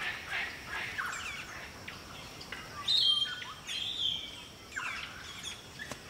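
Several wild birds calling over one another: quick repeated chirps, with a louder whistled call about three seconds in and another a second later.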